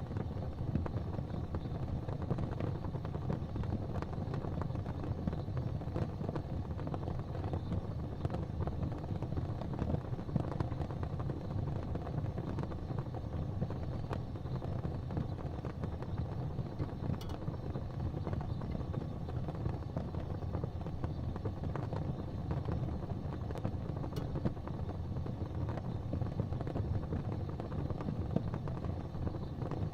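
A fire burning with a steady low rumble and scattered sharp crackles.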